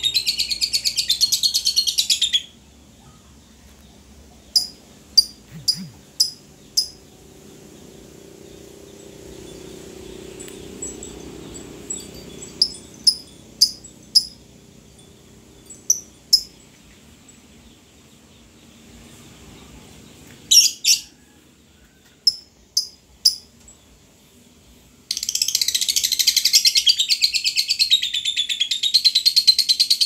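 A small yellow cage bird singing: a long, fast rolling trill at the start and another from near the end, with single sharp chirps scattered between.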